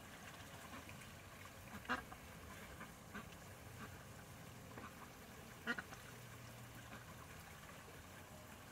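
Domestic ducks giving a few short quacks; the two loudest come about two seconds in and just before six seconds, with fainter calls between.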